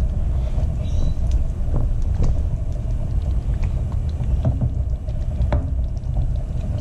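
Steady low rumble with a few light knocks as a wooden spoon stirs a stainless steel pot of stew and is lifted out for a taste.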